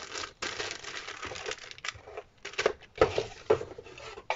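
Clear plastic bag crinkling and paper sheets rustling as craft-kit parts are handled and put back into a cardboard box, with a few sharper knocks in the second half.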